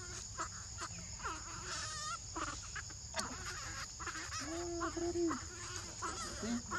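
Animal calls: short wavering squeaks and a longer, lower held call about two-thirds of the way through, over a steady high-pitched drone.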